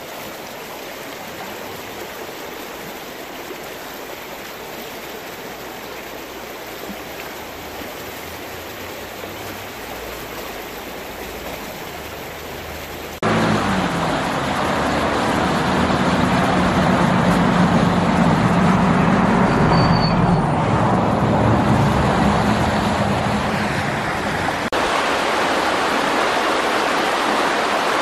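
Shallow river water rushing steadily over a stony bed. About halfway through, the sound jumps suddenly louder and fuller, then stays steady.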